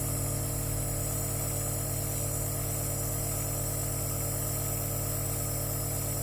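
Small electric nebulizer compressor running with a steady hum and buzz, putting out medicated mist for inhalation.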